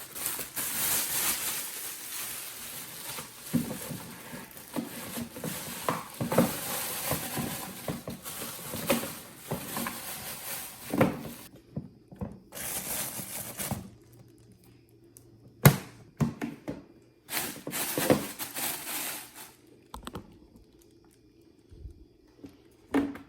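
Plastic Litter Genie refill cartridge and bag crinkling and rustling as they are handled, with a few sharp plastic clicks and knocks. The crinkling is continuous for the first half, then comes in shorter bursts.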